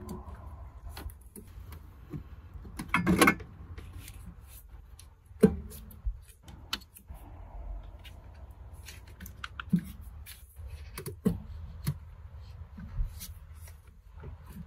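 Scattered clicks, knocks and rattles of metal parts as a turbocharger is wiggled into place in a car's engine bay, over a low steady hum. There is a louder rattling scrape about three seconds in and a sharp knock a couple of seconds later.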